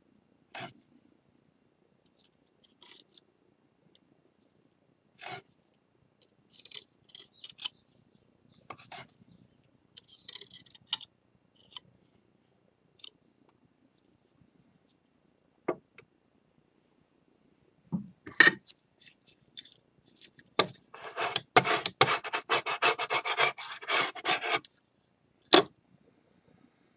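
Small handling noises of hand repair work on a ceramic bowl: scattered taps and light rubs, then about three seconds of rapid scraping or rubbing starting some 21 seconds in.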